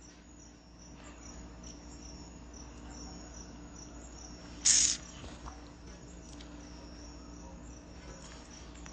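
Faint, steady high-pitched chirping over a low hum, with one short, sharp hiss about halfway through.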